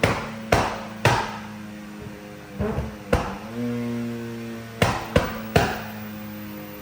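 Background music: sharp percussive hits, single or in quick runs of two or three, over sustained low tones that change about halfway through.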